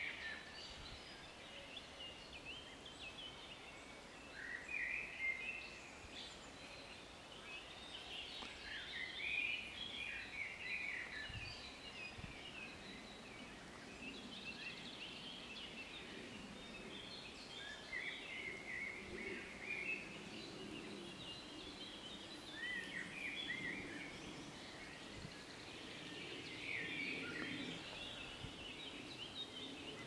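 Songbirds singing in short, repeated warbling phrases from the tree canopy, among them a Eurasian golden oriole (wilga), the bird in view.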